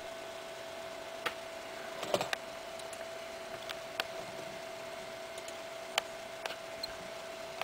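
A few scattered computer mouse clicks over a steady hum with a faint constant tone.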